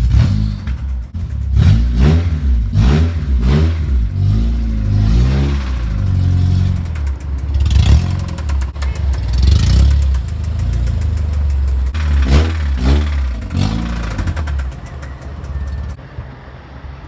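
Car engine revving in repeated quick throttle blips, its pitch climbing and dropping each time, loud, easing to a lower running sound near the end.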